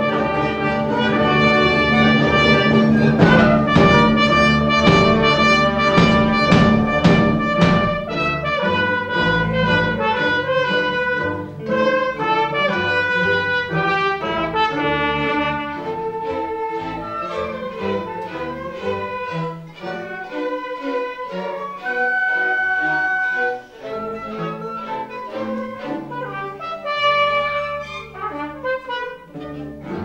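Orchestra of strings, woodwind, brass and drum kit playing live, with trumpets prominent. The first several seconds are loudest and fullest, with drum strikes, then the music thins to lighter passages with one held high note about two-thirds of the way through.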